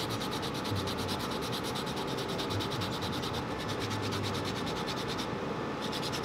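Quick, even scraping strokes on a small carved wooden lure body, several a second, as its surface is worked down in fine detail, with a brief pause near the end.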